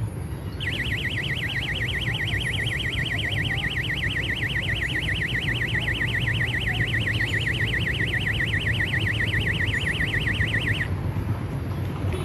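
A high warbling tone like an electronic alarm, sweeping up and down several times a second, sounds for about ten seconds and cuts off abruptly, over a steady low rumble.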